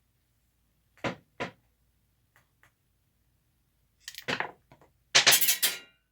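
Small metal parts and tools knocking on a workbench during reassembly of a toy train motor: two sharp knocks about a second in and a few light ticks and clatters. Near the end comes a louder rattle with a brief metallic ringing, small parts dropping and bouncing: the motor's tiny spacers falling.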